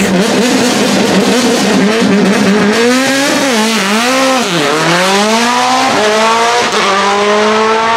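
A racing car's engine at high revs, its pitch swooping down and back up twice a few seconds in, then climbing steadily as the car accelerates.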